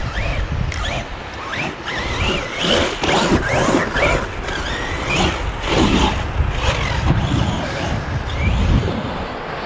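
Corally Asuga 6S RC buggy's brushless electric motor whining up and down in pitch in short, repeated throttle bursts as it drives through sand. Wind rumbles on the microphone underneath.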